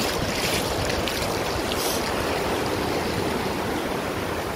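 Shallow ocean surf washing over a sandy beach as a steady hiss, with a few light splashes of feet in the water in the first two seconds.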